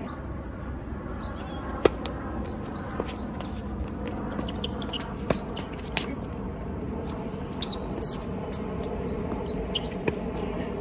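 Tennis balls struck by rackets and bouncing on a hard court during a doubles rally: a sharp pop about two seconds in, the loudest, then several fainter pops spaced a second or more apart, over steady low background noise.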